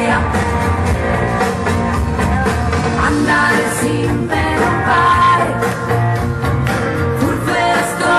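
Pop-rock music with a steady drum beat, guitar and a singing voice.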